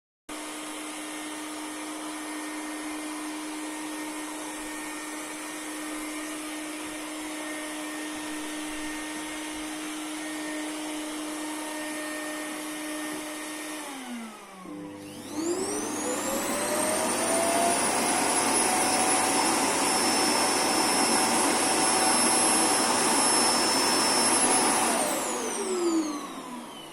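Roomba robot vacuum's motor running with a steady hum, then winding down about 14 s in. A second, louder suction motor then spins up with a rising whine, runs steadily for about ten seconds as it empties the bin, and winds down near the end.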